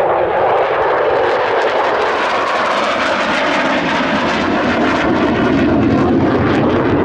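F-16 fighter jet flying past: loud, steady jet-engine noise with a crackling edge. Its pitch sinks gradually as the jet moves away.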